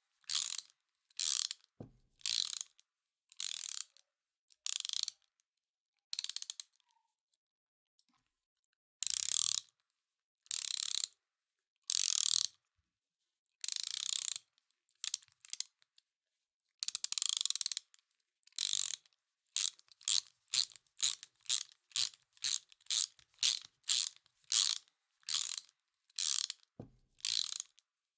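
Hand ratchet wrench clicking in short bursts of rapid clicks as it is worked back and forth. After a pause of about two seconds in the first third, the bursts come quicker and more regularly, about one and a half a second, near the end.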